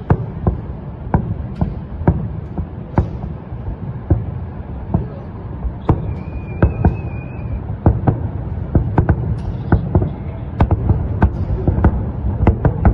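Fireworks display: aerial shells bursting in irregular, rapid bangs over a continuous low rumble, the bangs coming thicker in the second half. A brief high whistle sounds about six seconds in.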